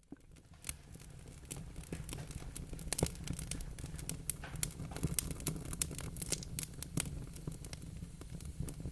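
Wood fire crackling in a fireplace: irregular sharp pops and snaps over a low steady rumble.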